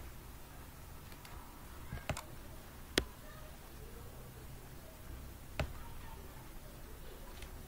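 Computer mouse clicks: a few sharp, separate clicks a second or more apart, the loudest about three seconds in, over a low steady hum.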